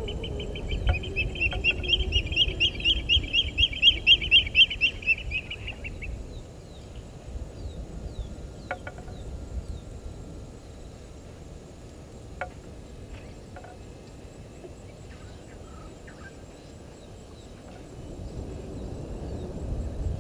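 A bird calling in a long, fast series of harsh repeated notes that swells in loudness, peaks around four seconds in and stops about six seconds in. After it come a few scattered short chips.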